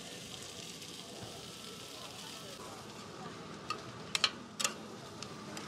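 Corn and cheese sizzling on a flat-top griddle, a steady hiss. From a little past the middle come four or five sharp metal clacks as spatulas strike and scrape the griddle.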